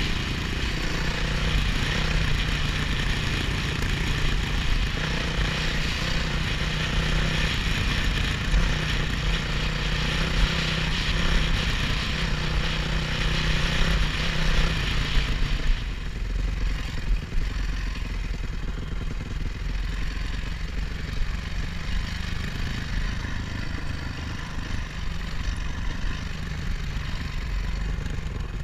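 Dirt bike engine running under way, heard from the rider's helmet, with rumbling at the microphone. About halfway through the engine note drops suddenly and the bike carries on at a lower, rougher note.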